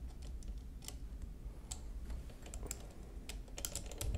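Light, scattered clicks and taps of small steel parts of a 1920s Monroe mechanical calculator being handled and worked on their pin, coming more often near the end.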